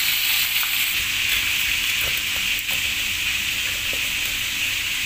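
Fish frying in oil in a pan, a steady high sizzle, with a few soft knocks from a knife cutting through a fish on a cutting board.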